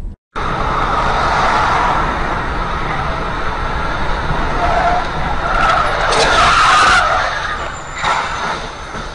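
Car tyres skidding on the road, a steady noisy squeal. A louder burst of noise comes about six seconds in, and a shorter one near the end.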